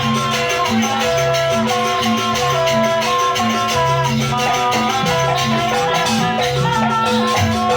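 Live jaranan gamelan ensemble playing a sampak piece: a low drum pattern repeating steadily under a stepping melody and a held tone, with shaker-like rattling on top.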